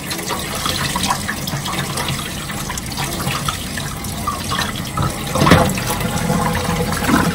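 Kitchen faucet running into an enamel colander as calf testicles are rinsed, the water splashing steadily, with a louder swell a little past halfway as the colander is moved under the stream.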